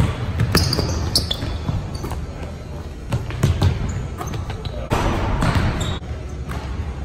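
Basketball bouncing on a hardwood gym floor during a game, with repeated sharp thuds, short high sneaker squeaks, and scattered players' voices in an echoing gym.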